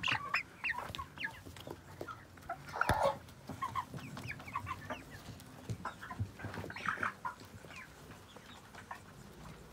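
White broiler chickens clucking and peeping in short, quick calls close to the microphone, with a few sharp taps among them, the loudest about three seconds in.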